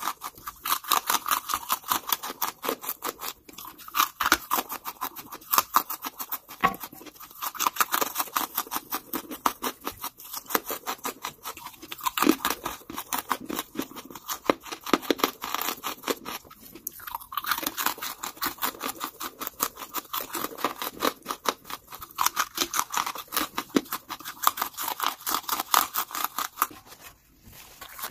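Charcoal being bitten and chewed close to the microphone: a dense, rapid run of crisp cracks and crunches, with a brief break near the end.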